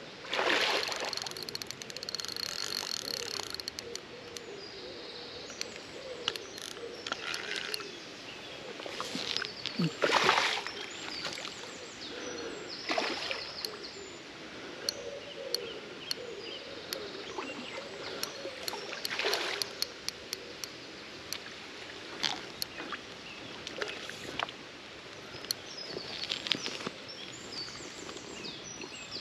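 Riverside outdoor sound: birds calling and singing over a faint steady background of moving water. This is broken every few seconds by short rushing bursts of noise, the loudest about ten seconds in.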